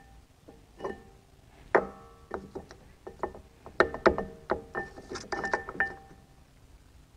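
Steel-backed brake pads clinking and tapping against a Porsche Macan's aluminium front brake caliper as they are fitted into it, each knock ringing briefly. The knocks are scattered at first and come in a quick flurry in the second half.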